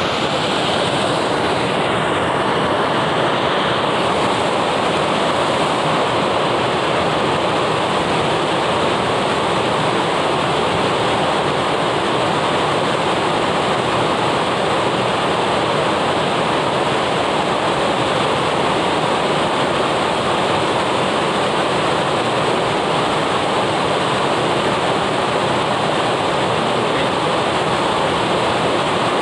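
Waterfall cascading over rock slabs into a pool: a loud, steady rush of water that never lets up.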